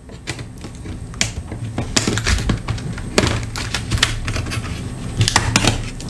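Plastic pry tool prying a thin metal shield off a laptop palm rest's touchpad board: a run of irregular, sharp clicks and snaps.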